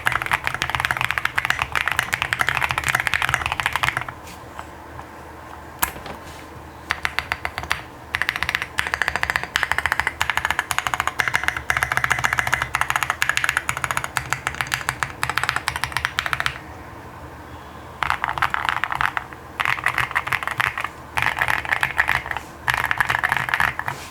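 Typing on a QK65 mechanical keyboard with lubed OP Black switches, a PC plate, foam dampening and SA-profile keycaps. Fast runs of keystrokes break off briefly about four seconds in and again around sixteen seconds in.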